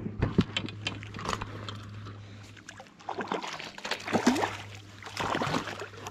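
A hooked rainbow trout splashing and thrashing at the water's surface beside a float tube, in irregular bursts of splashing over a steady low hum.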